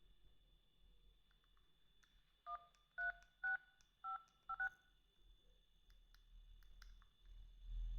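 BlackBerry 8707v phone keypad sounding dial tones as number keys are pressed: about six short two-note beeps in quick succession over two seconds, with faint key clicks before and after.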